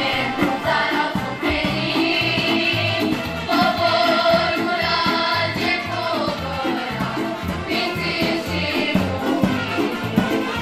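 Romanian folk hora music: a singing voice over instrumental accompaniment with a steady dance beat.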